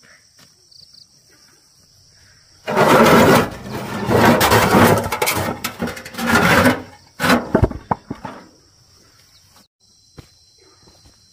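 Stone slabs tipped out of a metal wheelbarrow, grinding and scraping as they slide out onto dirt for about four seconds, then a couple of sharp knocks as slabs settle. A steady high insect drone runs underneath.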